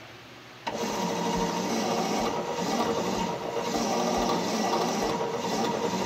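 Electric starter cranking the Continental engine of a REO sawmill power unit, starting abruptly under a second in: a steady grinding whir with a regular low beat of compression strokes about twice a second. The engine turns over but does not fire, as no fuel has reached it yet, and the cranking may not be quite fast enough.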